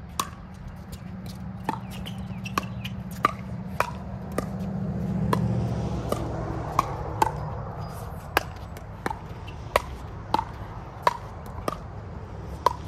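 Pickleball paddles hitting a hollow plastic ball during a rally: a string of sharp pops, roughly one to two a second, some fainter than others. Under them runs a steady low hum that grows louder around the middle.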